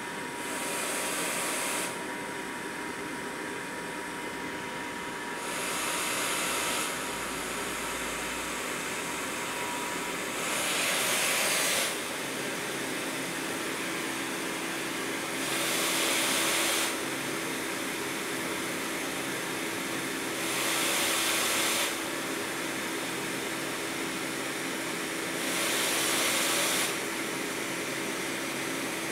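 Healthdyne Quantum PSV pressure-support ventilator running, with a steady blower hiss and a louder rush of air for just over a second about every five seconds as it delivers each breath, six times. Its air outlet is partly taped over to stand in for an attached patient.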